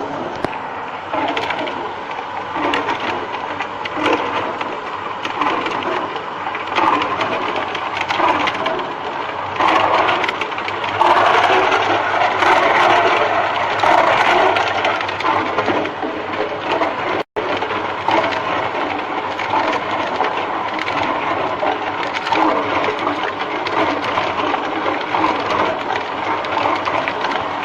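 Tube ice machine at work: a continuous clatter of many small hard knocks and cracks, like chunks of ice breaking and tumbling. It cuts out briefly about two-thirds of the way through.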